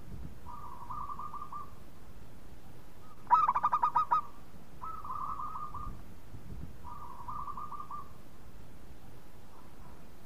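Zebra dove (perkutut) song: a run of short, rapid, trilling coo phrases, each about a second long, repeated every couple of seconds. A louder phrase of about eight quick staccato coos comes about three and a half seconds in.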